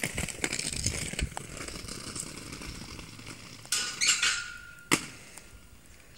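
Roller-skate wheels rolling over paving stones, a gritty rattle, followed by a brief squeak and one sharp knock about five seconds in.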